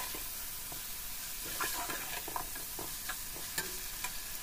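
Chicken pieces sizzling in hot oil with fried onion and ginger-garlic in a metal wok, stirred with a metal slotted spoon, its scrapes and clinks against the pan coming several times over the steady sizzle.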